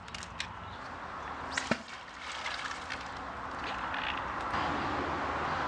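Handling of a magnet-fishing haul: a few sharp clicks and a knock about a second and a half in, over a steady rushing hiss that grows louder in the second half.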